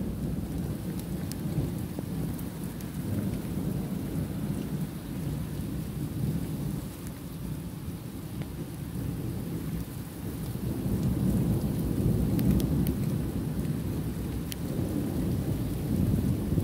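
Thunder rumbling low and continuously in a thunderstorm, with rain, swelling louder about ten seconds in and again near the end.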